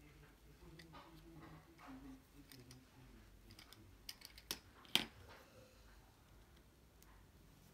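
A man singing faintly in the background, then a few sharp plastic clicks and taps as a pick-up pen and a small glue bottle are handled; the loudest click comes about five seconds in.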